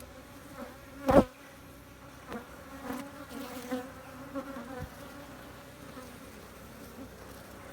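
Swarm of honeybees buzzing around an opened hive, a steady hum. One sharp knock about a second in, and a few lighter clicks.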